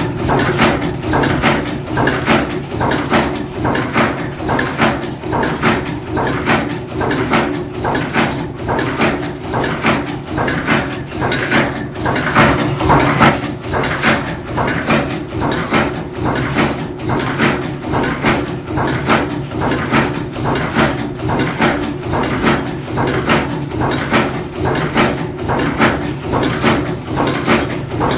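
Cold forging bolt former machine running steadily, its ram striking in an even rhythm of about two strokes a second over a constant low mechanical hum.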